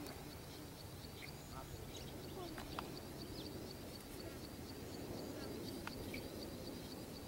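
Quiet rural outdoor ambience: a high, thin pulsing call repeats steadily at about four pulses a second over a low background murmur, with a few short chirps.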